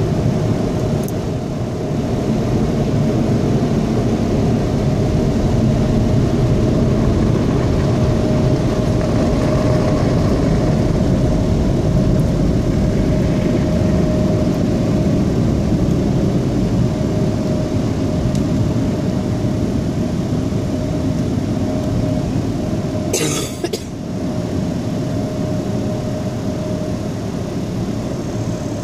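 Automatic car wash dryer blowers running, a loud steady rush of air with a steady hum, heard from inside the car. One brief knock comes about three-quarters of the way through.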